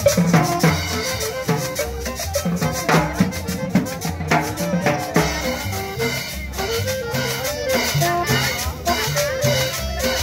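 Latin dance music at a steady beat: a walking bass line, a stepping melody and crisp rattling percussion on every beat.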